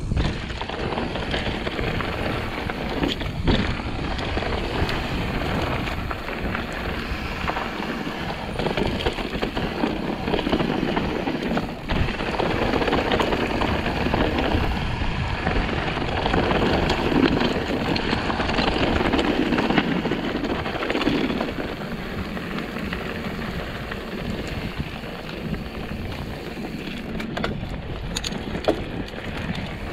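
Mountain bike riding fast down a steep, loose, rocky dirt trail: continuous tyre noise on dirt and rock, with the bike rattling and knocking over the rough ground.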